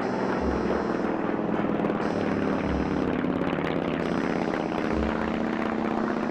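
Nakajima Sakae 31 radial aircraft engine of a Japanese Zero running steadily, with a fast, even pulsing beat.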